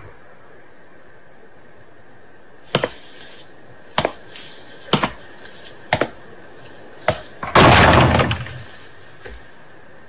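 Five sharp knocks about a second apart, then a louder, longer bang and rattle of a heavy wooden door about three-quarters in.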